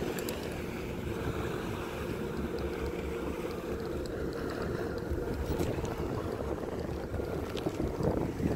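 Wind rushing and buffeting over the microphone, with the steady drone of the towing motorboat's engine far below.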